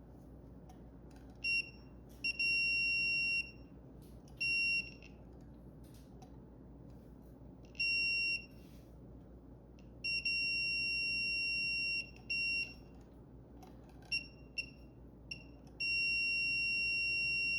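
A multimeter's continuity beeper sounding in irregular beeps: a high steady tone that comes and goes, some short blips and some held for a second or two, as the test probes make and lose contact on the speed controller's wiring. The continuity reads as working, with the beep breaking up because the probe connections are poor.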